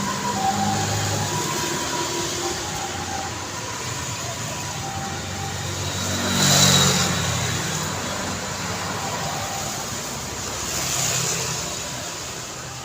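Road traffic on a city street, with vehicles passing by; the loudest pass is about six and a half seconds in and another comes about eleven seconds in. A two-tone siren alternates faintly in the background during the first few seconds.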